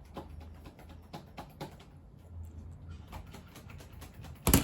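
Scattered light clicks and taps from a toddler eating, then one loud thump near the end.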